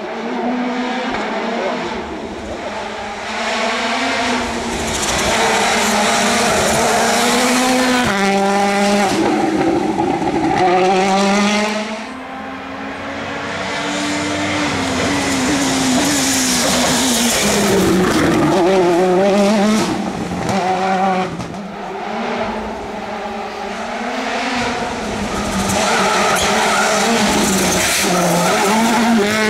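Citroën C3 WRC rally car's 1.6-litre turbocharged four-cylinder engine driven hard, its pitch repeatedly climbing through the gears and dropping as it lifts and brakes for the corners.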